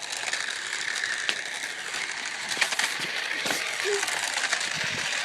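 Radio-controlled toy car's small electric motor and gears running with a steady whir and rapid clicking rattle.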